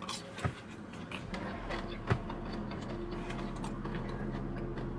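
Quiet chewing of potato wedges with a couple of sharp clicks, over a steady low hum that sets in about a second in.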